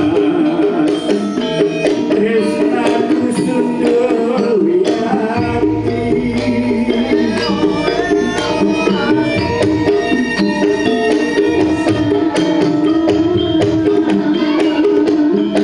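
Live campursari music played by a gamelan ensemble through PA speakers: kendang hand-drum beats, sustained pitched instruments and a voice singing over them. A deep low layer joins about five seconds in.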